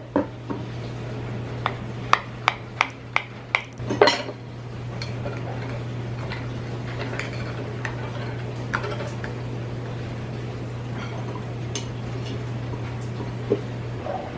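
Metal utensil clinking and scraping against a ceramic pie dish as a slice of pie is cut and served: a quick run of sharp clinks over the first four seconds, then a few faint taps over a steady low hum.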